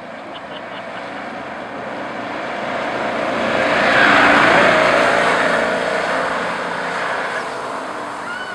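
A golf cart driving past on wet pavement. The hiss of its motor and tyres grows louder to a peak about four seconds in, then fades as it drives away.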